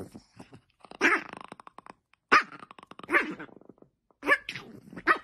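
A dog hidden under a fluffy blanket growling and barking at a hand reaching in, in about five short, rough bursts.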